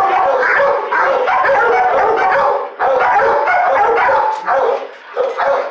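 Kennelled shelter dogs barking and yelping together: a loud, nearly unbroken din of overlapping barks, with a short lull about half-way through and another near the end.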